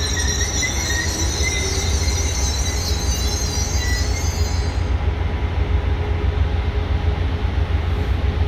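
Amtrak Cascades Talgo trainset rolling slowly into the station, its wheels squealing high against the rails until about five seconds in, over a steady low rumble.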